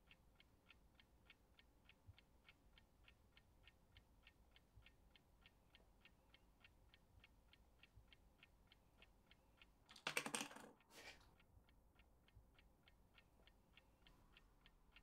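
Faint, steady ticking, about three ticks a second, like a clock. About ten seconds in, a sudden loud burst of rapid clattering, followed by a shorter one about a second later.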